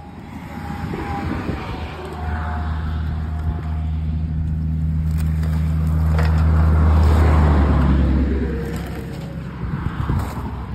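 A road vehicle passing close by on the road: a low engine drone that builds for several seconds, is loudest about seven seconds in, then fades away.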